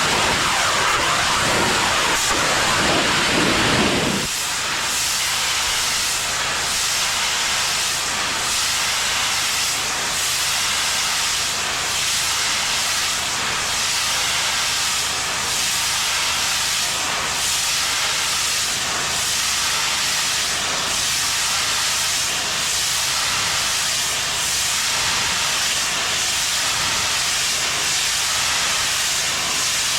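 Pressure washer spraying water: a loud, steady hiss of the spray over the low, steady hum of the machine. A heavier low rumble in the first four seconds or so drops away, leaving the hum and the hiss.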